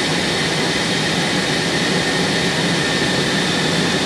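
Steady cabin noise of an Airbus A321 in flight: the even rush of its jet engines and airflow heard from inside the passenger cabin.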